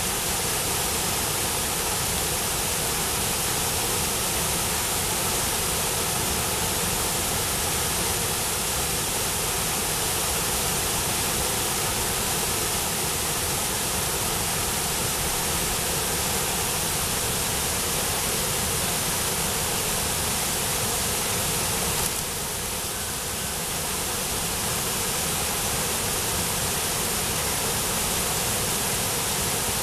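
Steady rushing roar of a waterfall, white water pouring over a rock ledge; it turns a little quieter for a moment about three-quarters of the way through, then returns.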